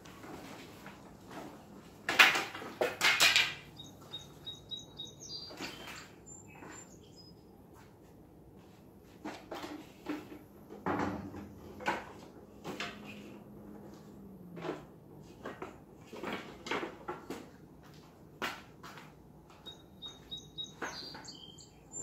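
Knocks, clicks and rattles of a folding wagon cart's metal frame and its load being handled, with a loud clatter about two seconds in. Birds chirp briefly a few times, and a low hum runs for a few seconds midway.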